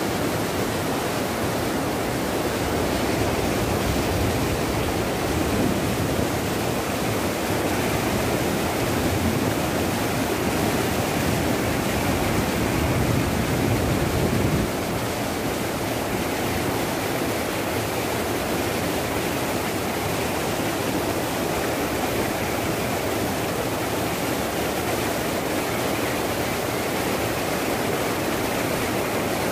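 Muddy floodwater rushing and churning over boulders in a swollen river, a steady loud rush of turbulent water. About halfway through, the deep rumble drops a little.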